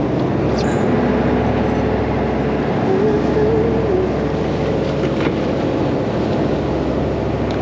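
Charter fishing boat's engine running steadily, a constant hum with wind and water noise over it.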